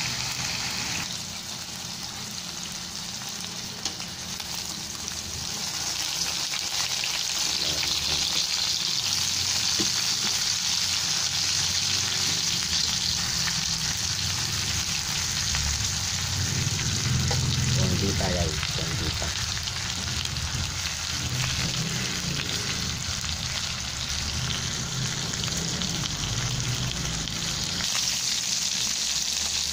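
Pork steak slices frying in hot oil in a pan, sizzling with a steady hiss that grows louder a few seconds in.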